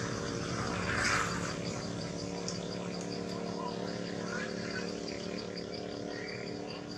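An insect chirping in a fast, even rhythm of about four or five pulses a second, starting about two seconds in, over a steady low mechanical hum.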